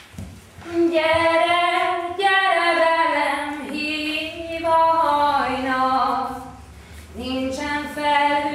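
A woman singing alone in long, held notes that slide up and down in pitch; she breaks off briefly about seven seconds in and starts again.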